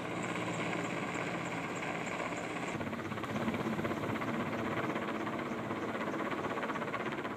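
Military transport helicopter hovering overhead: steady turbine and rotor noise with a fast, even beat from the main rotor blades. The sound shifts abruptly about three seconds in.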